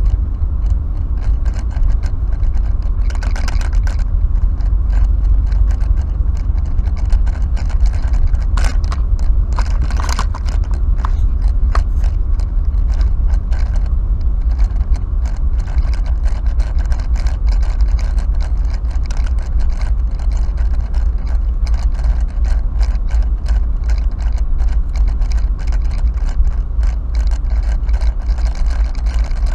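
Car driving, heard from the dashboard inside the cabin: a steady low rumble of road and engine noise with frequent light rattles and clicks, and a few louder rasping sounds a few seconds in and about a third of the way through.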